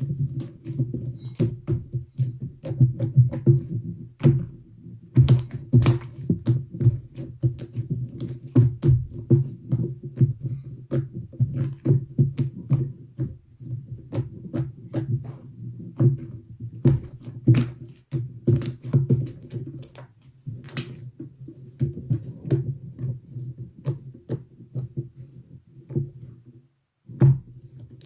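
Slime being squeezed and pressed by hand, making rapid, irregular wet clicks and pops with a low squishing underneath, pausing briefly near the end.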